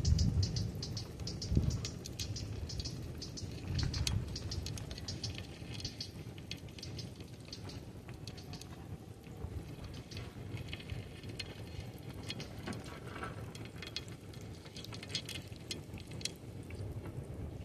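Scattered sharp clicks and short runs of quick high ticking in a mangrove where aratu crabs crawl around a trap. A low rumble sounds in the first couple of seconds.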